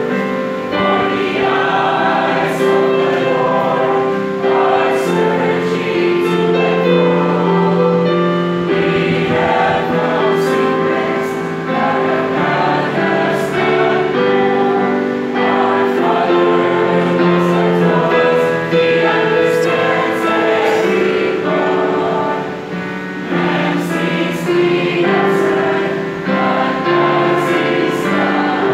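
Mixed choir of men and women singing a hymn together, several pitches at once, with many notes held long.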